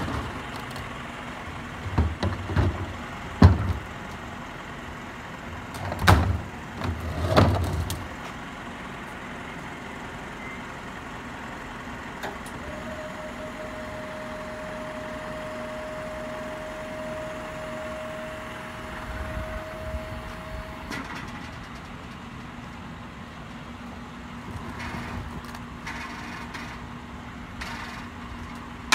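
Garbage truck working a trash cart: several heavy thumps and bangs over the first eight seconds or so. Then a steady whine for about eight seconds, and then a lower steady hum.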